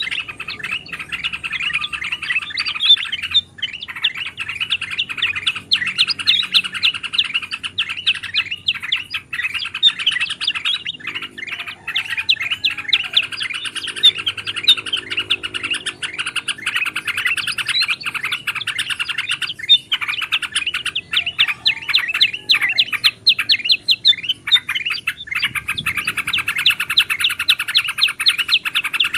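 Dense, unbroken chattering of several bulbuls at once: rapid overlapping chirps and trills of yellow-vented bulbuls mixed with ruby-throated and black-headed bulbul calls, played as a bird-trapping lure.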